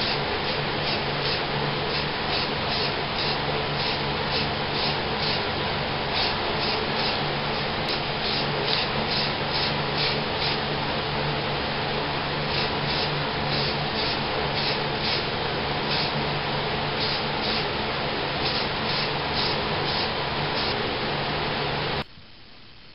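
Aerosol spray can of primer hissing steadily while being sprayed, then cutting off suddenly near the end.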